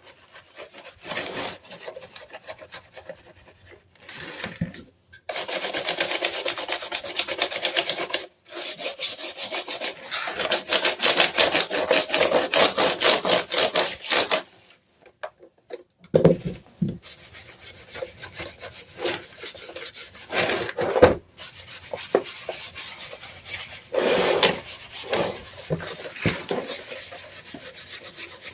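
Scrubbing and rubbing on a Dell keyboard as it is cleaned. A long run of rapid back-and-forth strokes starts about five seconds in and stops about fourteen seconds in, followed by scattered short rubs and clicks.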